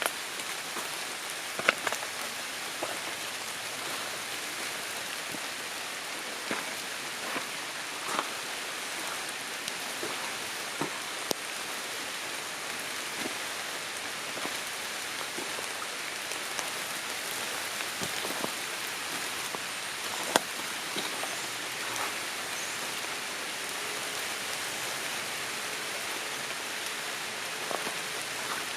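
Light rain falling on tree leaves in a forest: a steady patter with scattered sharper drips, a few standing out louder.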